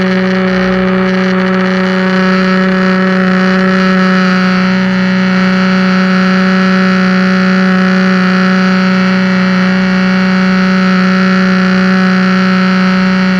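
Pressure washer running steadily under load: a loud, unbroken machine drone with a strong low hum and a hiss over it.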